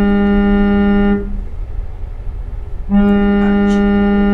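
Mobile phone's incoming-call alert sounding twice: two long, steady buzzing tones of one pitch, each about a second and a half, with a pause between.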